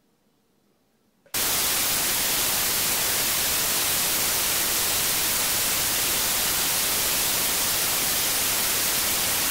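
Near silence, then about a second in a loud, steady hiss of TV static (white noise) cuts in suddenly and holds at an even level.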